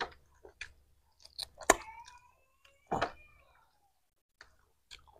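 Scattered mouth noises of eating chicken by hand: lip smacks, sucking on the bones and chewing clicks. A sharp click about a second and a half in is followed by a faint high tone that slowly falls.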